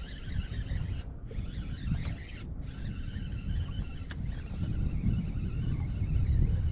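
Wind buffeting the microphone in an uneven low rumble that grows louder toward the end, over the faint wash of choppy water around a small boat.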